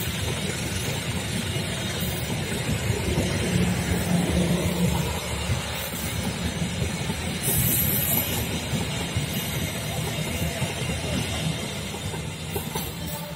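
Passenger train coaches rolling past on the track: a steady noise of steel wheels on rails, easing off a little near the end as the train moves away.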